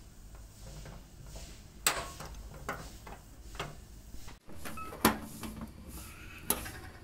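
Steel parts of an old mechanical car jack clicking and clinking as they are handled and fitted together, about five sharp metallic knocks with faint handling noise between.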